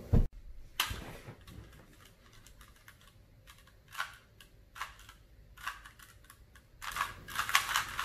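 A Rubik's Cube being turned by hand: its plastic layers click as they snap round, in scattered turns at first and then a fast, dense run of turns near the end. A single low thump comes just after the start.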